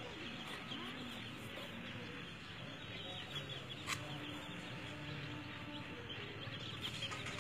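A brood of chicks peeping constantly in quick high chirps, with the mother hen's low clucking underneath and a single sharp click about four seconds in.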